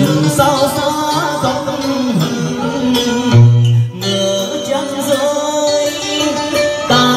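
A man singing a Vietnamese song through a microphone over traditional-style instrumental accompaniment with a plucked string part. One strong low note sounds about halfway through.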